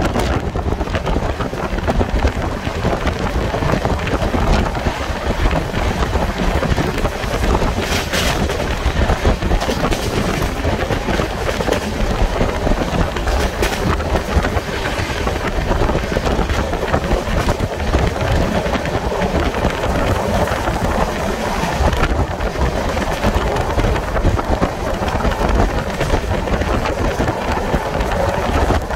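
Wind blasting the microphone over the steady rumble of an express passenger train's wheels on the rails at high speed, heard from an open coach door or window.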